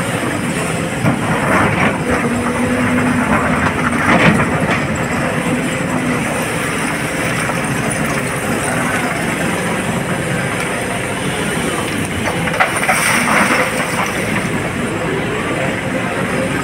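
Hydraulic excavator's diesel engine running steadily under digging load, heard from inside the cab, with a few louder bursts of the bucket scraping and clattering through broken rock.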